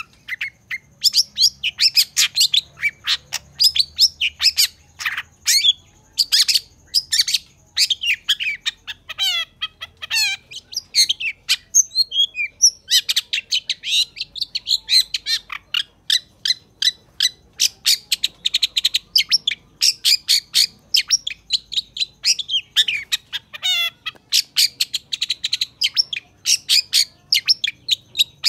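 Long-tailed shrike (cendet) singing a fast, continuous chatter of short, sharp notes, several a second, with a brief break about twelve seconds in.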